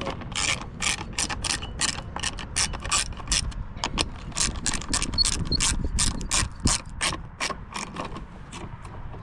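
Zip ties being ratcheted tight around trailer wiring: a steady run of sharp ratcheting clicks, about three a second.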